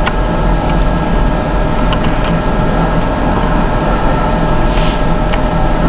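Steady, loud mechanical hum throughout, with a few light clicks as a laptop RAM module is pushed into its memory slot.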